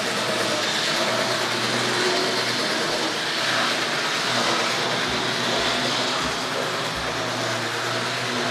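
Tri-ang R.555 Blue Pullman model train running on a 00-gauge layout: the motor bogie's steady whir with its ribbed wheels rattling on the track, a racket.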